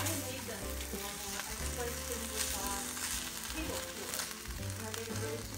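Cubes of tofu sizzling steadily as they fry in a nonstick pan, with a few light scrapes and taps of a silicone spatula turning them over. Background music plays underneath.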